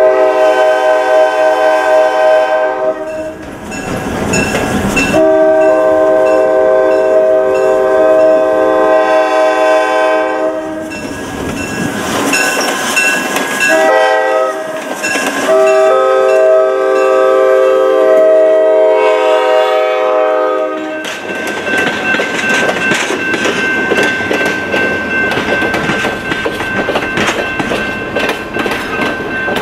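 EMD GP-9 diesel locomotive's air horn sounding a series of long and shorter blasts, as for a road crossing. After the last long blast ends about two-thirds of the way through, the train's wheels clatter over the rail joints as the cars roll past.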